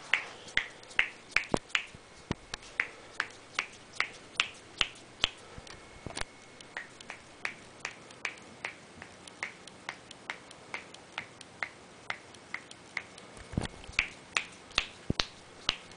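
Finger joints popping over and over in a rapid series of sharp clicks, about two to three a second. The pops come from double-jointed fingers, not knuckle cracking.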